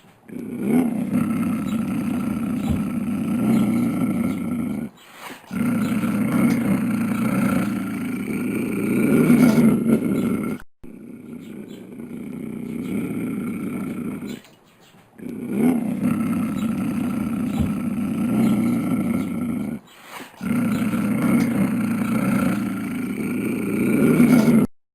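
Lion growling and roaring in five long, low-pitched bouts of about four to five seconds each, separated by brief breaks.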